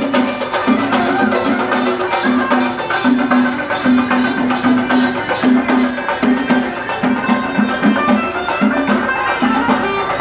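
Traditional South Indian festival music: rhythmic drumming with sharp percussive strokes over a repeated mid-pitched note that pulses on the beat.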